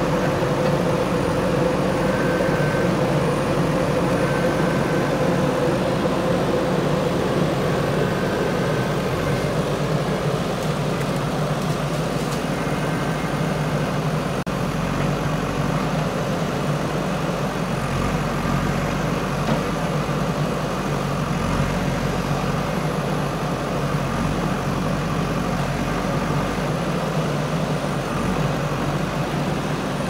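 JCB backhoe loader's diesel engine running steadily as the machine manoeuvres, a continuous low engine note with no pauses.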